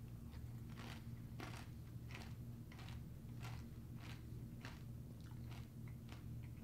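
A mouthful of crunchy honey almond flake cereal with milk being chewed, with a crisp crunch at each chew, about three crunches every two seconds.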